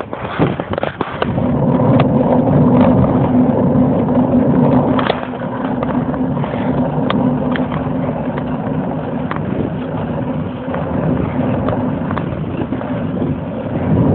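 Bicycle riding on an asphalt road: steady rolling road noise with a low hum, and scattered sharp clicks and rattles. It swells about a second and a half in, then holds steady.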